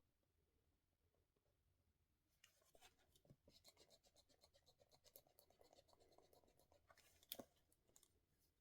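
Faint scratching of a pen writing on paper, starting about two and a half seconds in, with one sharper tap near the end.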